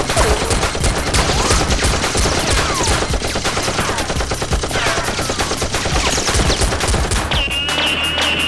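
Rapid automatic gunfire sound effects, dense continuous shots laid over a Nerf battle, with short falling whistles among them. A held high tone comes in near the end.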